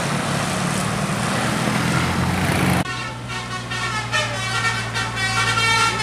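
Passing road traffic, a low engine drone over tyre and road noise, which cuts off abruptly just under three seconds in. A bus's multi-tone telolet horn (Basuri type) then plays a melody of stepping notes, over a steady low engine hum.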